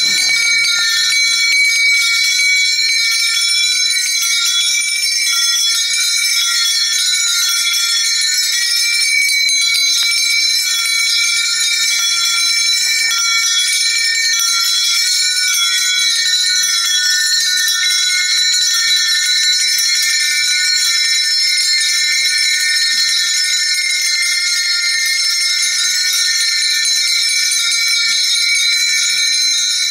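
Many small hand bells of Onappottan (Oneswaran) ritual performers ringing together in a dense, continuous jingle that never lets up.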